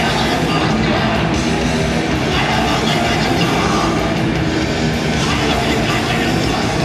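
Hardcore punk band playing live: distorted electric guitars, bass and drums, loud and steady throughout.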